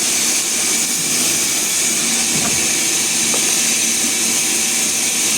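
Sawmill machinery running steadily, a constant hissing machine noise with no change in pace.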